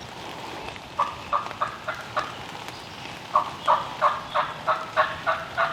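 A series of turkey yelps: four spaced notes, then a longer, louder run of about nine yelps at roughly three a second.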